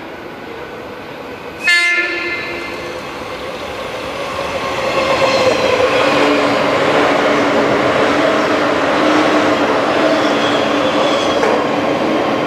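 JR 185 series electric train sounds a short horn blast about two seconds in, then passes at speed. Its wheels rolling on the rails build to a loud, steady rolling noise with a low hum through the second half.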